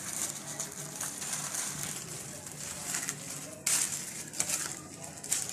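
Sheet of paper rustling and crinkling as a shawarma roll is wrapped in it by hand, with a sharper, louder crackle about two-thirds of the way through.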